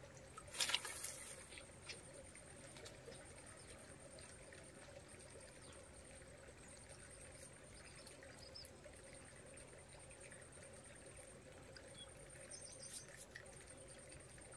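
Faint trickling water, with a short burst of noise about a second in and a thin steady high tone throughout.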